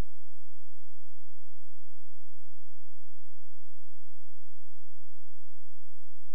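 Steady electronic tone of two pitches held together, with a faint high whine above, and a brief low pulse about every two and a half seconds.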